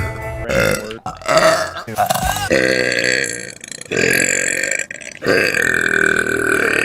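A girl burping about five times in a row, loud, drawn-out burps with short breaks between them; the last, long one begins about five seconds in.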